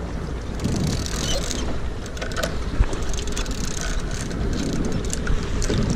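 Large big-game trolling reel being cranked, its gears and ratchet clicking in quick irregular ticks over a steady low rumble.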